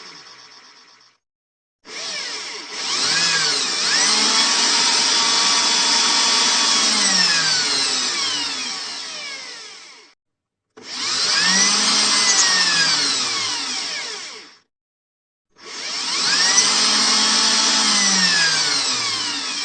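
Electric drill run in bursts: the motor winds down and stops, then three times spins up, runs with its whine rising and falling in pitch, and winds down, with short silences between the runs. The last run is still going at the end.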